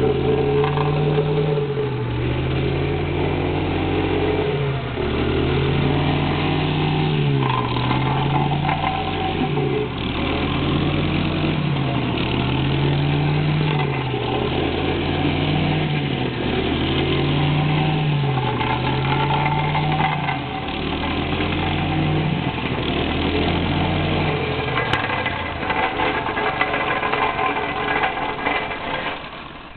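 Petrol engine of a vibratory plate compactor running as it compacts a fresh asphalt patch, with a loud drone whose pitch dips and recovers every few seconds. The drone drops away just before the end.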